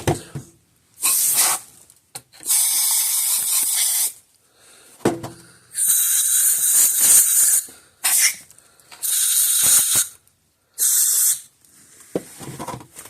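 Canned compressed air (air duster) hissing in about five short blasts of half a second to two seconds each, blowing dirt and insect-nest debris out of recessed screw holes in a plastic case.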